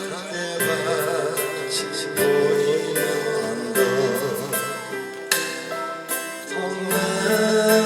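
Instrumental music: the introduction of a slow ballad, a wavering melody line over sustained chords.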